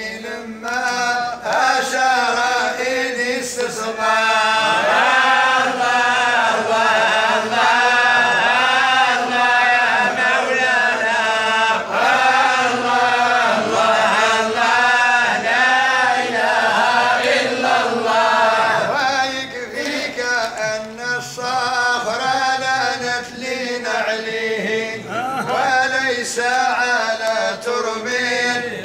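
Group of men chanting Sufi madih, Arabic devotional praise songs, together in a melody that rises and falls.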